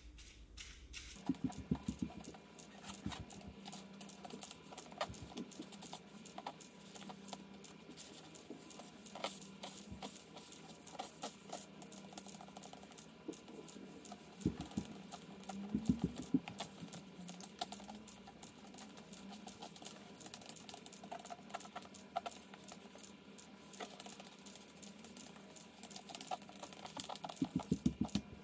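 Charcoal sticks taped to the fingertips tapping and scratching across paper: a stream of quick taps and scrapes, with denser flurries about two seconds in, around fifteen seconds in, and near the end.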